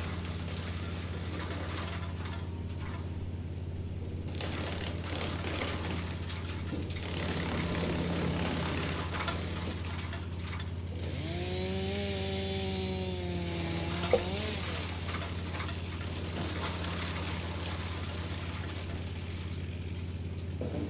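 Wood chipper engine running steadily. About halfway through, a pitched whine rises and holds for a few seconds, followed by a single sharp knock.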